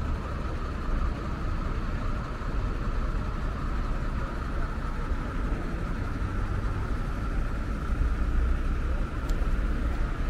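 Steady street traffic noise with idling vehicles: a continuous low rumble and a steady high-pitched hum, with one faint click about nine seconds in.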